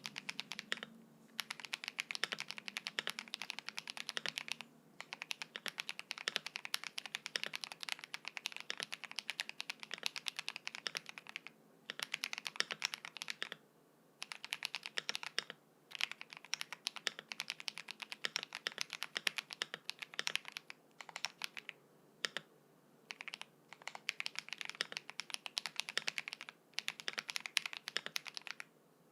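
Fast typing on a KBD67 Lite R2 custom mechanical keyboard with lubed Drop Invyr Holy Panda tactile switches on a PC plate, giving a rapid stream of key clacks in bursts of a few seconds with short pauses between.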